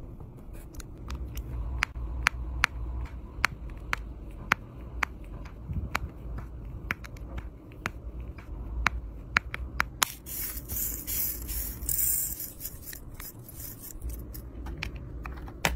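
Diamond-painting pen tapping resin drills onto the sticky canvas: sharp, irregular clicks, one or two a second, over a low rumble. About ten seconds in, a high hissing rustle lasts two to three seconds before the clicks return.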